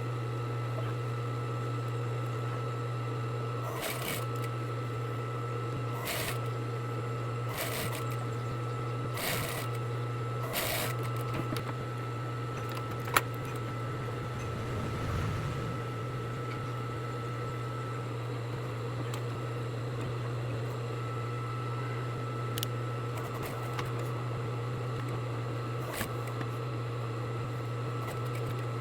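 Sewing machine motor running with a steady hum, with a few soft rustles of fabric being handled a few seconds in and one sharp click about halfway through.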